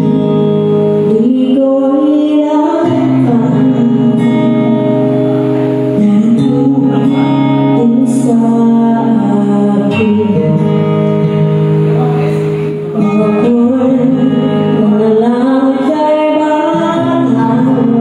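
A woman singing into a microphone through a PA system, over backing music of long held chords.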